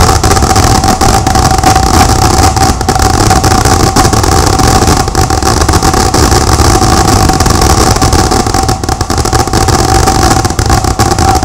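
Dense fireworks barrage: a loud, unbroken rumble of overlapping bangs and crackle.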